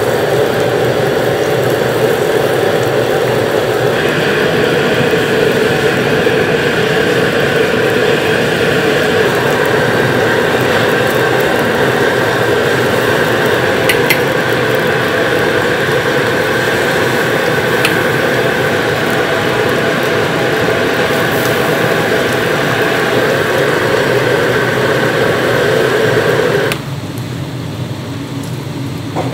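Steady roar of a commercial gas wok burner under a wok of jjamppong broth boiling hard with vegetables. The roar drops suddenly near the end.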